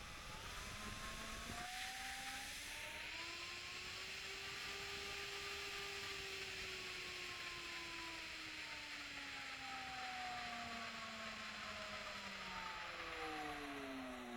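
Crown CT11001 2100 W electric router running: its motor whine climbs gradually over the first few seconds as the soft start brings it up to speed, then falls slowly in pitch through the rest, over a steady airy fan noise.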